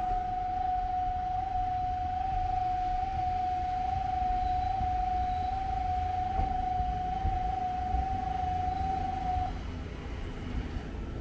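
A train-approach warning tone sounds at the platform: a single steady high tone that holds at an even strength for about nine seconds and then stops, over a low rumble as the train comes in.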